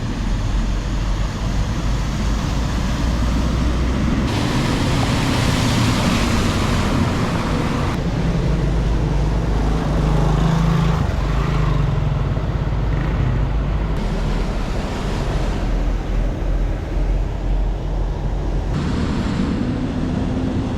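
Road traffic on a rain-soaked highway: vehicle engines running under a steady hiss of wet road noise. The mix changes abruptly several times.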